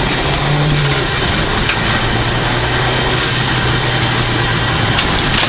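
Toyota Celica GT4's turbocharged four-cylinder engine running at a steady pitch under way on a rally stage, with a rushing tyre and road noise, heard from inside the cabin. The engine note steps up briefly about half a second in, then holds.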